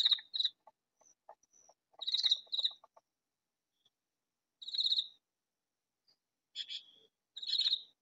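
Katydid calling: short, high, buzzy pulsed calls, several in pairs, repeated about every two seconds.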